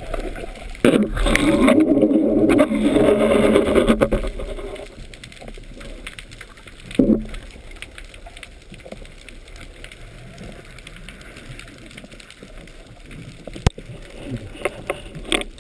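Water rushing and gurgling against a submerged camera on a speargun: a loud rush for about four seconds near the start, a brief rush about seven seconds in, then a low murmur broken by a sharp click near the end.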